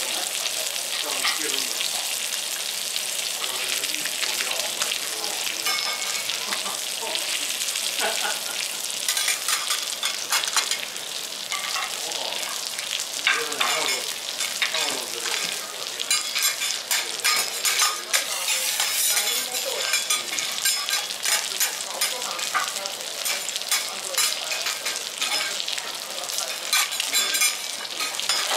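Japanese rockfish fillet sizzling skin-side down in oil on a hot teppanyaki griddle: a steady hiss with crackling pops that grow more frequent from about a third of the way in.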